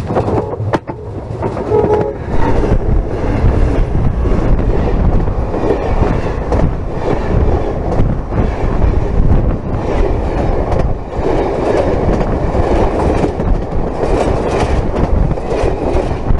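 A train rolling directly overhead, heard from between the rails: a sharp knock near the start, then loud, steady wheel rumble and rail clatter with repeated clickety-clack as the cars pass over.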